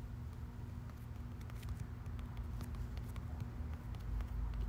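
Light, irregular taps of typing on a smartphone's on-screen keyboard, a few a second, over a low steady hum.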